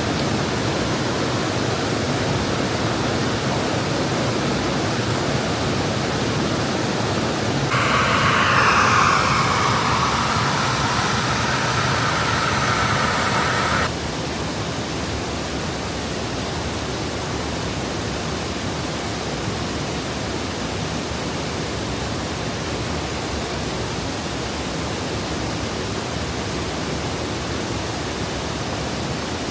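Steady rush of a waterfall's falling water. For several seconds a third of the way in, higher tones with a falling glide sit over it. At about the halfway point the rush drops suddenly to a slightly quieter level.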